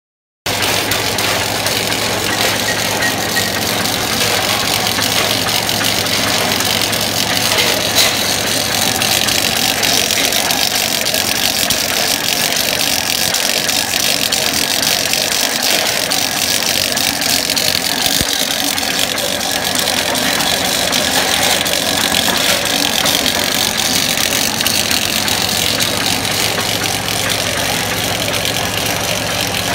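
PR-200 high-speed rotary punching press running steadily, punching 0.8 mm steel strip into perforated tape at about 70 m/min: a loud, dense, even mechanical clatter over a constant low hum. It starts abruptly about half a second in.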